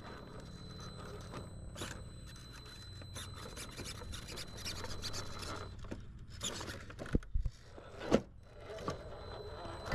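RC rock crawler's tyres and chassis scraping and grinding over rubble as it noses down a rock drop, with scattered small clicks and a faint steady high whine that stops a little before halfway. Two sharp knocks come about a second apart late on, the loudest sounds, as the truck drops onto the rocks.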